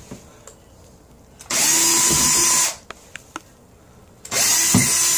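Cordless drill running in two steady bursts of a little over a second each, the first about a second and a half in and the second about four seconds in, as holes are drilled for mounting a shelf bracket to a bathroom wall.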